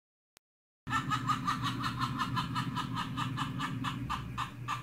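About a second of dead silence, then a rapid, even run of laughter, about five or six short bursts a second, over a steady low hum.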